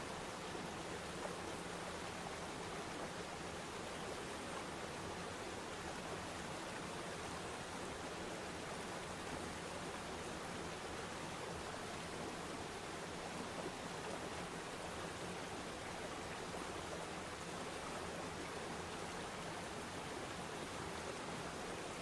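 Steady rush of water from a waterfall and the river rapids below it: an even hiss with no breaks or changes.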